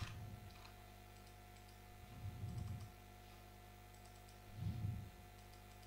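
Faint clicking at a computer during file navigation, with three low dull thumps (at the start, about halfway and near the end) over a steady electrical hum.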